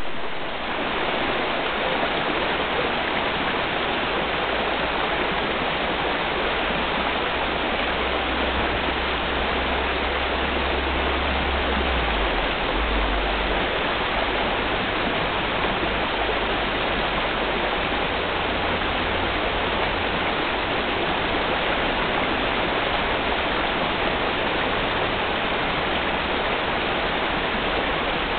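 Steady rush of flowing river water, an even noise with no change throughout.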